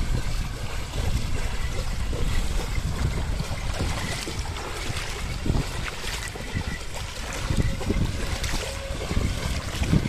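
Muddy water splashing and sloshing in irregular bursts as a pair of bullocks wade and drag a plough through a flooded paddy field, with wind rumbling on the microphone.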